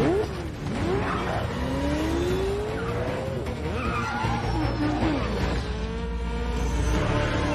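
Vehicle engines revving, their pitch rising and falling, with tyres squealing and skidding over a steady low rumble, as in a film car chase.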